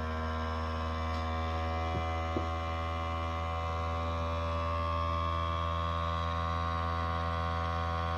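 Red Fish countertop vacuum sealer's pump running with a steady hum, drawing the air out of a sealing bag.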